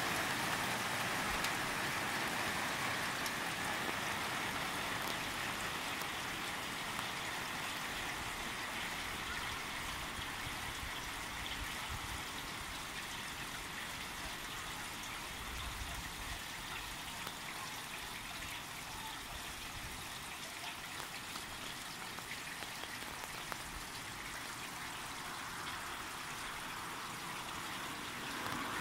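Steady rain falling on wet pavement and grass, an even hiss that eases slightly over the first half.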